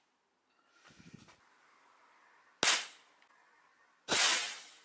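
Air pistol being cocked, a short clatter about a second in, then two sharp cracks of air-pistol shots, the first just under three seconds in and the second about four seconds in, fading a little more slowly.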